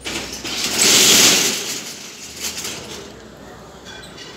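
A rush of engine-like mechanical noise that swells to its loudest about a second in and then fades away.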